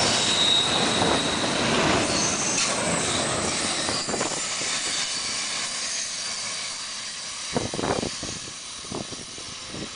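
Double-stack container train cars rolling past at speed: wheels rumbling on the rails, with a thin high wheel squeal in the first second. The noise fades steadily as the last cars pass and recede, with a few short knocks near the end.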